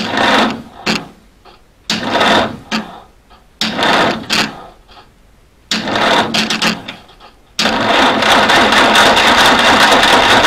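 Starter motor cranking a 1952 M38A1 Jeep's F-head four-cylinder engine in several short bursts, then a longer crank of about three seconds, without the engine starting. The battery is low on charge, so the starter is turning the engine on a weak battery.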